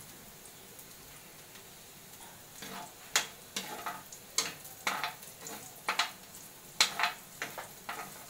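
Chopped garlic sizzling in a little oil in a metal wok. From about two and a half seconds in, a plastic spatula scrapes and taps across the pan in irregular strokes, one or two a second.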